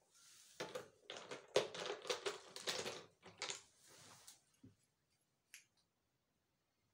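Small hard objects clicking and clattering as they are handled, a dense irregular run for about four seconds, then two or three single clicks near the end.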